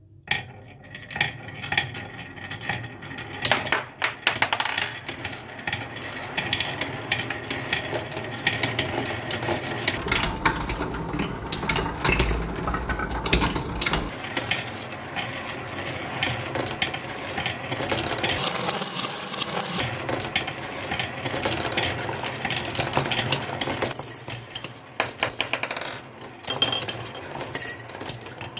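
Many marbles rolling and clattering down a wooden marble run, a dense stream of clicks and clacks with a low rumble for a few seconds around the middle.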